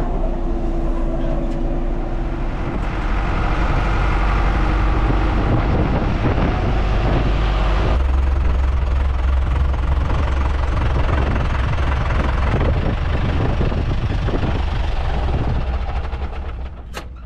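Vehicle engine running steadily under way, with a sudden change in its sound about halfway through. It dies away near the end, and a sharp click follows.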